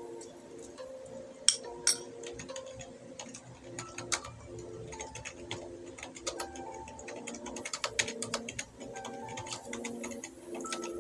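Metal spoon clinking and scraping against a glass bowl during eating, in irregular small clicks with two sharper clinks about one and a half and two seconds in. Quiet background music of held notes underneath.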